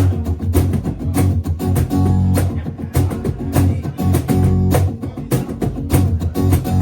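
Instrumental music: guitar playing with hand percussion keeping a steady beat of regular sharp hits.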